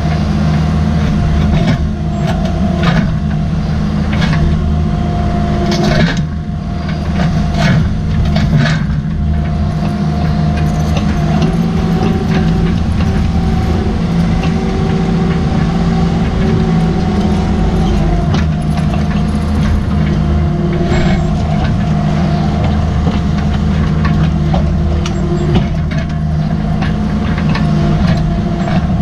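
Cat 305.5E mini excavator's diesel engine running steadily under load, with a steady whine over it. The Engcon tiltrotator bucket digging in rocky ground adds scattered knocks and scrapes of steel on stone, most of them in the first several seconds.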